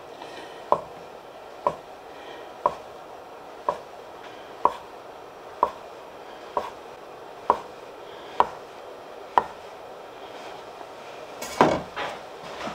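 Chef's knife slicing through a log of gnocchi dough onto a wooden cutting board: ten even knocks of the blade on the board, about one a second. A louder clatter of knocks comes near the end.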